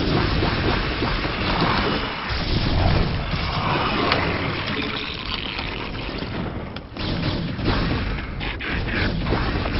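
Real-time strategy video game battle sound effects: a dense, continuous run of explosions, weapon fire and impacts from a large fight between units.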